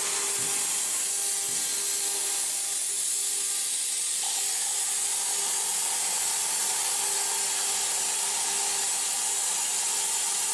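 CNC plasma cutter's torch arc hissing steadily as it cuts, with a steady whine under the hiss; a second, higher whine joins about four seconds in.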